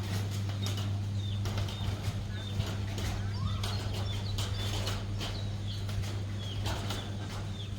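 Chickens making short high chirps, repeated every second or so, with many sharp taps and clicks, over a steady low hum.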